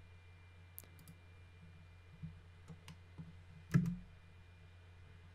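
A handful of faint, scattered computer mouse clicks, the loudest nearly four seconds in, over a faint steady low hum.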